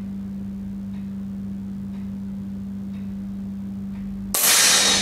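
Precihole NP60 Draco .177 break-barrel nitro-piston air pistol fired once, a sudden loud shot about four and a half seconds in that rings away over about a second. A steady low hum runs underneath.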